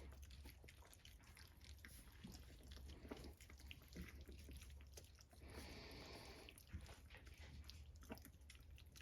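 Faint chewing and smacking of five-week-old cockapoo puppies eating soft mush, many small scattered clicks over a low steady hum.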